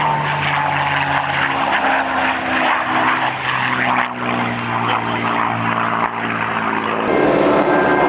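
P-51 Mustang's Merlin V-12 engine droning as the fighter flies its airshow routine, the pitch dropping about two seconds in and the sound growing louder and fuller near the end.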